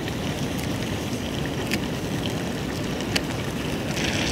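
Wind rumbling on the microphone outdoors, steady throughout, with a few faint clicks; a brighter hiss comes up near the end.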